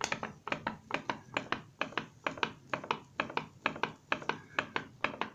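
A pop-pop boat engine running out of water over an alcohol burner, popping rapidly and a little unevenly, several pops a second. Each pop is the thin aluminium boiler's diaphragm flexing as the water inside flashes to vapour and condenses back to liquid.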